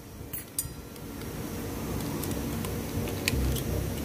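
Light metallic clicks and clinks, scattered irregularly, as a steel snap ring is pried into its groove on an automatic transmission's high clutch drum with a screwdriver.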